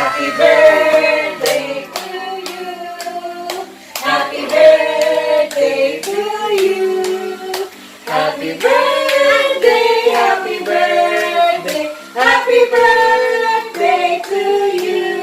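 Voices singing a song together, with hand claps keeping a steady beat.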